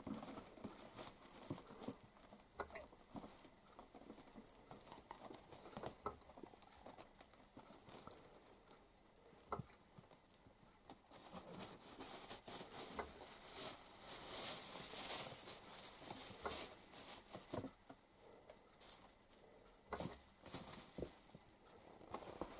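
Faint rustling and crinkling of woven plastic sacks and a thin plastic bag as a kitten scrambles over them, with scattered small taps and scratches. The rustle grows louder and longer about halfway through.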